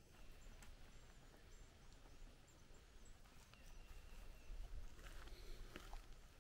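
Near-silent woodland ambience with faint, high bird chirps. From about five seconds in, light footsteps crunch on dry leaf litter and wood chips as walking resumes.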